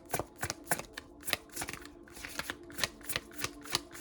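Tarot deck being shuffled by hand: a quick, irregular run of crisp card snaps, several a second.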